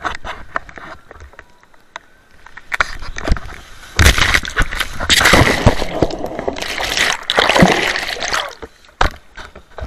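Seawater splashing and sloshing close to the microphone: a few small knocks at first, then a loud wash of surf about four seconds in that surges for several seconds before dying away.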